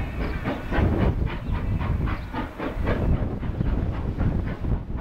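GWR Manor class 4-6-0 steam locomotive working hard up a bank with a heavily loaded train, its exhaust barking in fast, even beats, about four to five a second, over a deep rumble.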